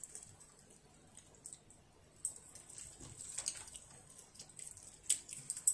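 Quiet eating at a table: scattered soft clicks and taps of wooden chopsticks picking food from a plastic divided plate, the sharpest click near the end.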